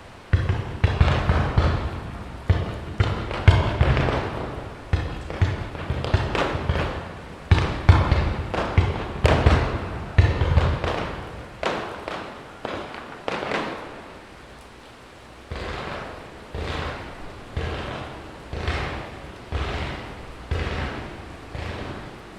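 Aerial firework shells bursting one after another: sharp bangs, each trailed by a rolling echo, dense and overlapping for the first ten seconds or so, then thinning to roughly one burst a second.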